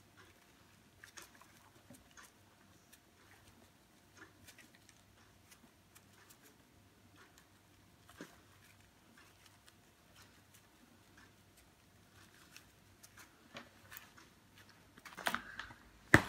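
Faint crinkling and pattering ticks of a plastic bag of grated grana cheese being shaken over a lasagne pan, turning into louder rustling near the end with one sharp knock.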